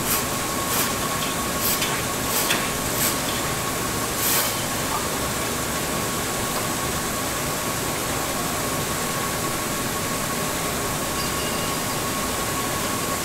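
Steady mechanical running noise with a constant high whine, and a few short sharp clicks in the first few seconds.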